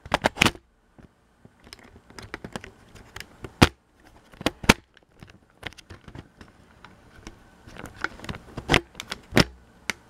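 Handling noise from a camera being adjusted by hand: irregular clicks, taps and knocks, some sharp and loud, with no steady rhythm.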